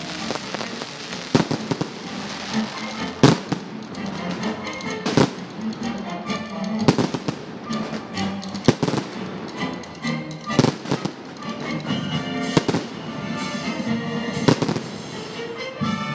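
Fireworks display: sharp bangs about every two seconds with crackling in between, over music.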